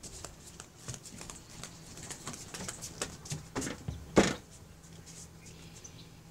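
Scattered light clicks and knocks from a handheld phone being moved about, with a louder thump about four seconds in.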